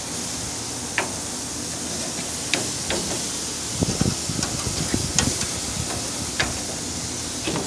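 Steaks sizzling on a hot propane grill, a steady hiss, with metal tongs clicking against the grate or meat several times.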